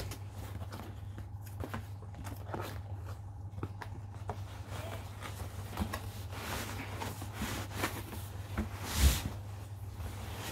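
Cardboard box being opened by hand, with the flaps folded back and the contents shifted, giving scattered rustles and scrapes. There is a louder thump about nine seconds in.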